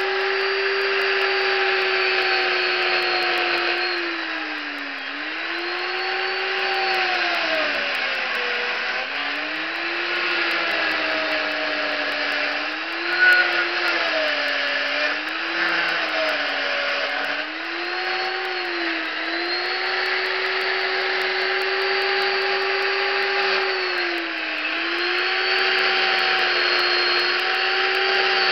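Chainsaw running at high revs and cutting wood, its pitch sagging again and again as the chain bites into the wood and climbing back as it frees, with one sharp knock about halfway through.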